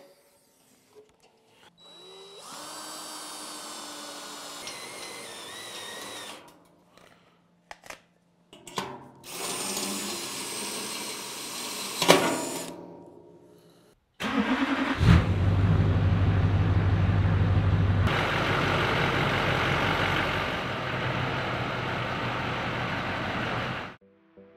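Short mechanical sounds in the first half, with a sharp bang about twelve seconds in. About fourteen seconds in, a 6.6-liter Duramax V8 diesel cranks, catches, and runs at a steady, loud idle until it cuts off near the end.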